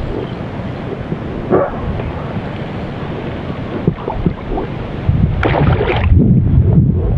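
Wind rumbling on the microphone, then a hooked fish thrashing at the water's surface: a short burst of splashing about five and a half seconds in.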